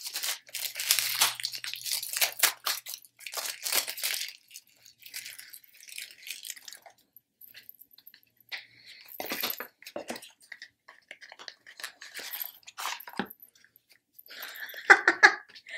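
Plastic wrapping being torn and crinkled off a deck of playing cards, dense crackling for the first few seconds, then scattered rustles and light clicks as the card box is handled and opened.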